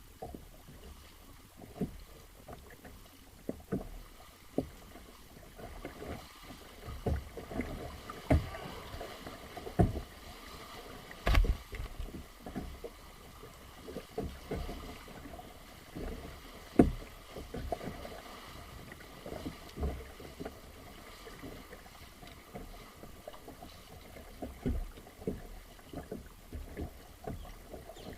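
Kayak paddling: paddle blades dipping and splashing in the water in an irregular rhythm, with a few sharper knocks, the loudest about eleven seconds in.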